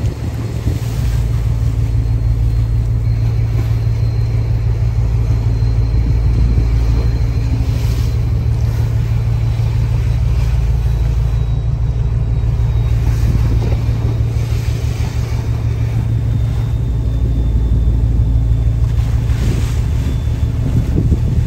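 Small boat's engine running steadily under way with a low drone, wind buffeting the microphone over it.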